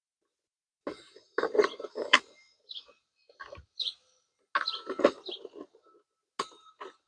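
Plastic plant pots and trays being handled, clattering and crinkling in three bursts with sharp clicks, with a few short high bird chirps between them.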